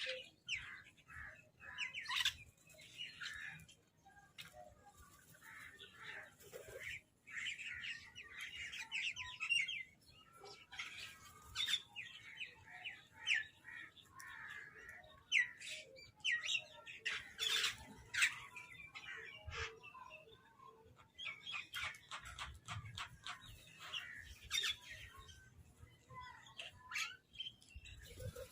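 Several birds calling at once: many short calls repeating and overlapping in a constant chatter, a few standing out louder than the rest.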